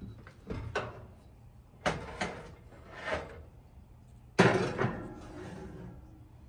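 Oven door opened and a glass baking dish slid onto the oven's wire rack: a run of scrapes and clunks, the loudest one about four and a half seconds in.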